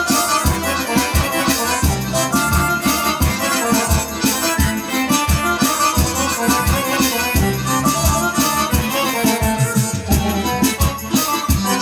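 GEM arranger keyboard playing a kyuchek: a lead melody over a steady, regular drum-and-bass accompaniment.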